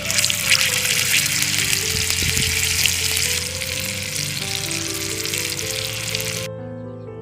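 Food frying in hot oil, a dense crackling sizzle that cuts off suddenly near the end, with background music underneath.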